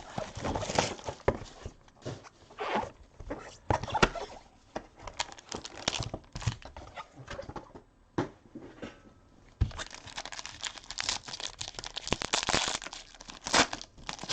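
Plastic wrapping crinkling and tearing in short crackly bursts as a sealed box of trading cards is opened, turning into denser rustling near the end.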